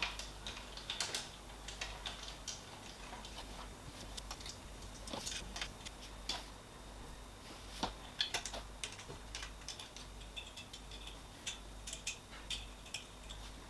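Allen key working the slot nuts on a 3D printer's frame: irregular small metallic clicks and ticks as the key seats and turns.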